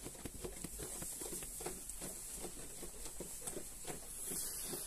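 Soft, irregular tapping and rustling as sheep shuffle about and rub against a person, over a steady faint hiss.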